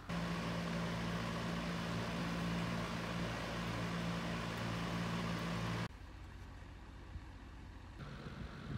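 Battery-powered electric fan running close by: a steady whir with a low motor hum, cutting off sharply about six seconds in to a quieter, steadier fan hiss.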